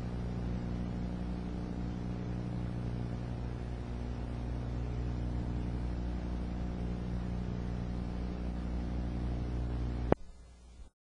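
A steady low hum made of several held pitches that do not change, ending abruptly with a click about ten seconds in.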